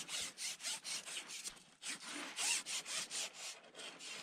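Quick, scratchy rustling and scraping strokes, about four or five a second.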